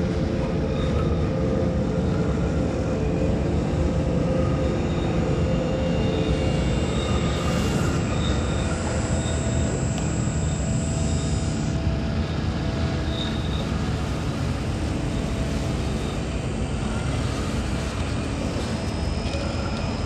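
Steady, dense rumbling noise with faint high held tones over it, unchanging in level.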